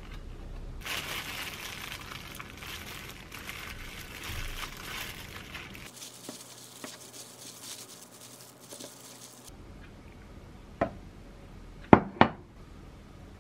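Plastic crinkling and rustling as a tofu pack is opened and tofu is squished into blanched spinach by a hand in a disposable plastic glove. Near the end a metal spoon clinks sharply three times against the bowl.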